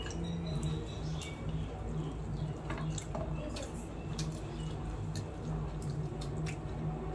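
Eating rice by hand from a steel plate: scattered small clicks and ticks as fingers and rings touch the plate while mixing the food, over a steady low hum.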